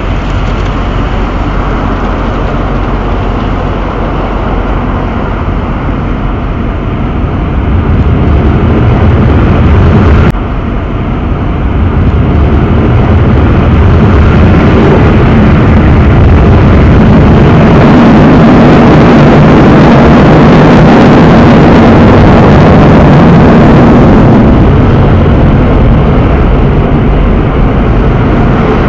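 Automatic car wash heard from inside the car: a loud, steady rush of water spray and washing machinery on the body and windshield. It grows louder about a third of the way in, with a brief drop about ten seconds in, and eases off near the end.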